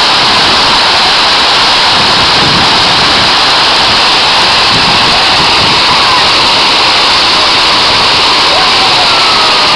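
Waterfall pouring steadily, a loud, even rush of falling water close to the microphone.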